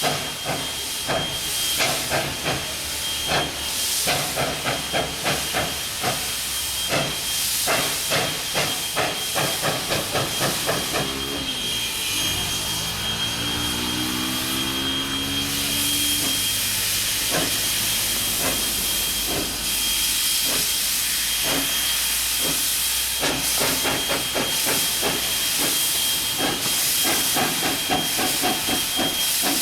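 Steam locomotive working, with quick rhythmic exhaust chuffs over a continuous hiss of steam. Around the middle, a pitched, whistle-like tone sounds for a few seconds and bends in pitch.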